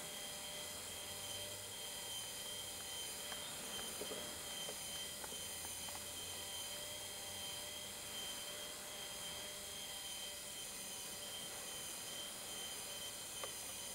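Faint, steady high electric whine of a small RC model motor, with a few light ticks.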